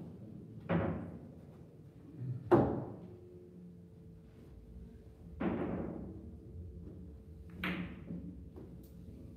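Billiard balls knocking: four separate sharp knocks, each ringing out briefly, about two seconds apart, over a faint steady hum.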